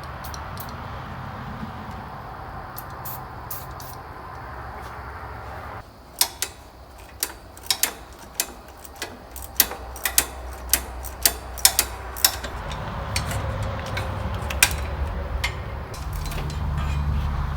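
Irregular sharp metallic clicks and clinks of hand tools working on a tractor's battery hardware, about a dozen over six seconds, over a steady low hum.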